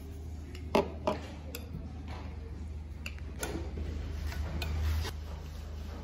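Light clicks and knocks of tableware on a tray, the two loudest about a second in, over a low steady hum.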